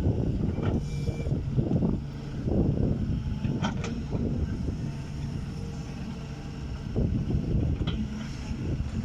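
Excavator's diesel engine running and working under load, its sound swelling and easing unevenly, with two short sharp metal clanks a little over halfway through.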